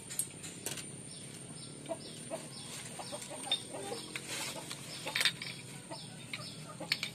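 Short, repeated bird-like calls with scattered light clicks, over a faint steady high whine.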